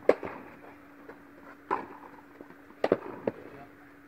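A tennis ball being knocked and bounced between points: four short, sharp knocks, the first the loudest and the last two close together, echoing in an indoor tennis hall over a steady low hum.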